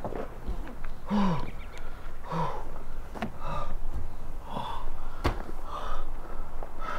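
A man groaning and gasping in short, breathy bursts about once a second, with a few sharp knocks in between.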